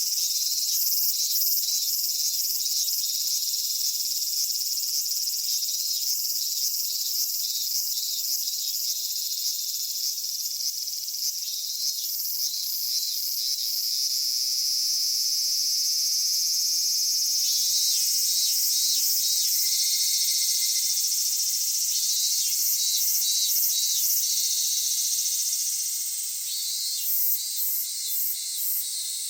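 Chorus of summer cicadas: a steady high-pitched buzzing, with pulsing calls rising over it every few seconds.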